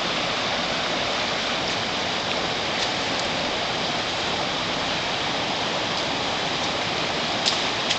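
Steady rushing of water from a fast-flowing mountain river, with a few faint clicks near the end.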